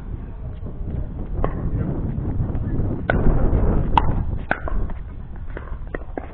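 Pickleball paddles striking a plastic pickleball during a rally: a series of sharp pops at irregular intervals, a few close together, over low wind rumble on the microphone.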